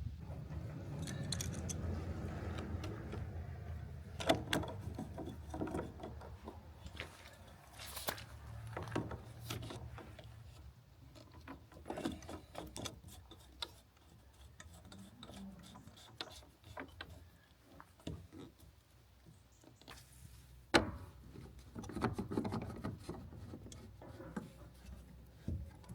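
Irregular scraping and rubbing, then scattered sharp knocks and taps of hand work, with the loudest knock about 21 seconds in.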